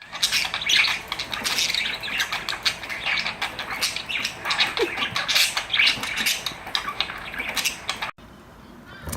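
Parrots squawking and screeching in harsh, rapid bursts, cutting off abruptly about eight seconds in.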